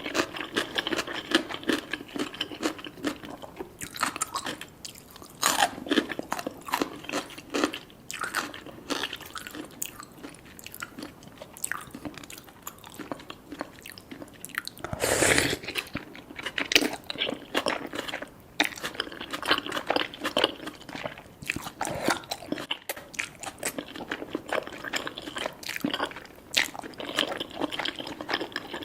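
Close-miked eating of cheesy rice cakes and fish balls: wet chewing and biting with many small irregular clicks, and one longer, louder burst about fifteen seconds in.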